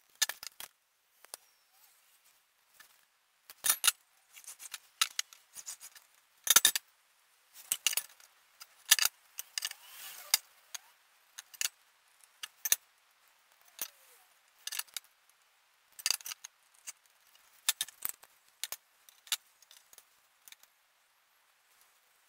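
Metal measuring tools (an aluminium speed square, a steel rule and square, a tape measure) being picked up, set down and slid on a laminated board: scattered, irregular light clinks and taps, with a short scraping stretch about ten seconds in.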